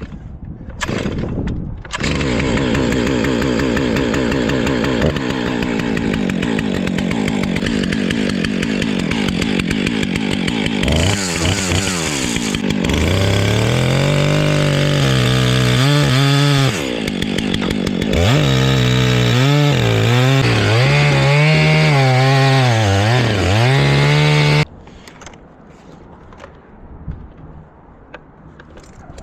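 Chainsaw running at full throttle, then cutting into black walnut, its pitch dipping and recovering again and again under load. It cuts off suddenly about five seconds before the end.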